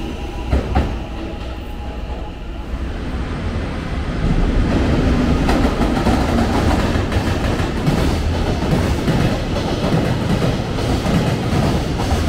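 A JR Freight EF210 electric locomotive hauling a container freight train runs through the station, the wagons' wheels running loudly and steadily over the track from about four seconds in. The quieter first few seconds belong to a JR West 223 series electric train pulling away.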